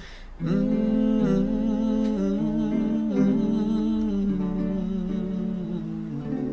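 A voice humming a wordless melody over acoustic guitar, after a brief pause at the start.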